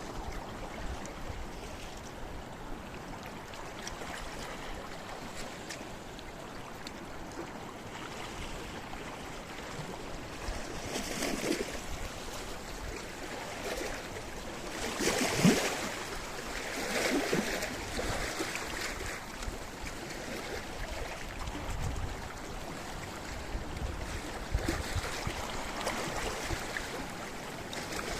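Sea waves washing against a rocky shore: a steady wash of surf with a few louder breaking waves, the loudest about halfway through.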